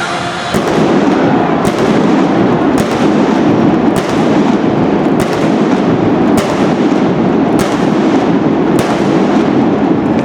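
Fireworks barrage: a dense, continuous crackling rush with a sharp bang about every second, starting half a second in and cutting off abruptly at the end.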